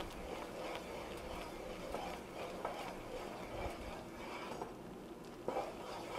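A wooden spoon stirring a thick chocolate, butter, milk and sugar mixture in a saucepan: soft, repeated scraping strokes against the pot, about one every half second, with a slightly louder knock of the spoon near the end.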